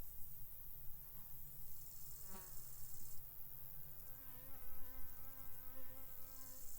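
A flying insect buzzing close by. It passes quickly a little over two seconds in, then hovers with a steadier buzz from about four seconds. Grasshoppers or crickets chirr in high bouts in the background.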